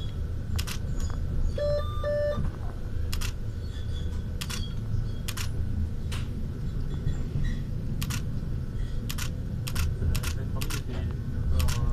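The Yellow Train's metre-gauge electric railcar running, heard from the driver's cab: a steady low rumble with sharp, irregular clicks, and two short electronic beeps about two seconds in.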